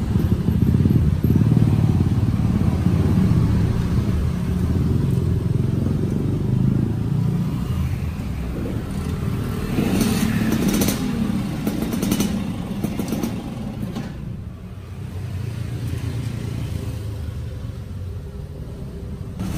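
Street traffic, mostly motorbike engines, running as a steady low rumble. A few sharp clicks of metal tongs against a frying wok come about ten to thirteen seconds in.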